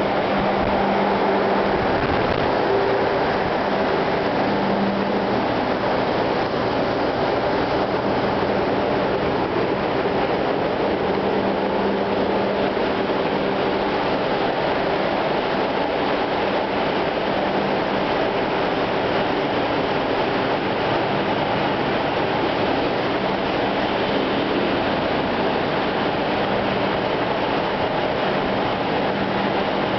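Container ship's large low-speed two-stroke diesel main engine (51,420 kW at 102 rpm) running, heard in the engine room as a steady, loud mechanical noise with a faint steady hum.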